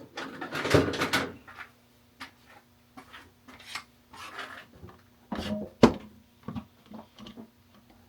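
Tools and objects being handled and moved about in a workshop: a string of knocks and clatters, with a busy rustling clatter about a second in and one sharp knock near six seconds.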